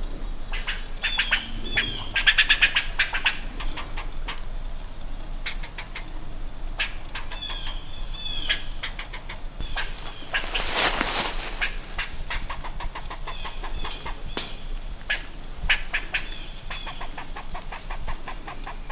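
Harsh animal chattering calls, given in repeated runs of rapid clicks and short chirps. There is a brief rustling hiss about eleven seconds in.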